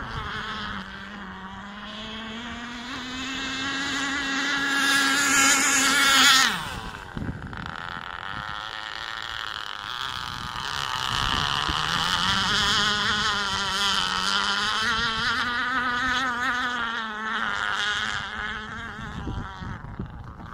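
K&B 7.5cc two-stroke glow engine of a Prater Lap Cat radio-controlled racing boat running hard on the water, a high buzzing note that wavers in pitch. It swells to its loudest about six seconds in and falls away sharply. It builds again from about eleven seconds.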